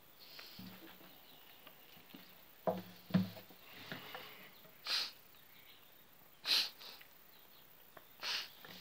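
Faint room noise with two soft knocks, then three short sniffs spread over the second half.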